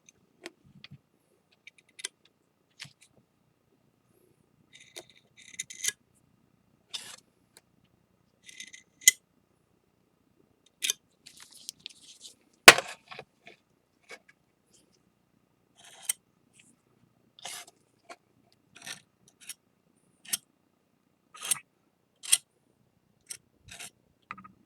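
Intermittent short scrapes and clicks of a palette knife spreading flour-and-lacquer paste (mugi-urushi) along the broken edge of a ceramic plate, with one sharp click about halfway through.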